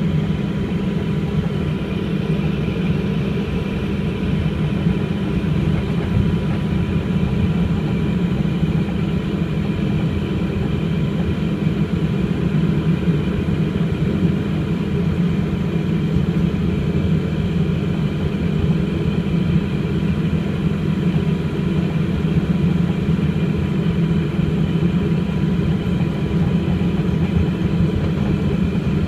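Cabin noise of an Embraer EMB 120 Brasilia's twin Pratt & Whitney Canada PW118 turboprops running at taxi power: a steady, loud drone with a deep hum underneath and a few thin, steady whines above it.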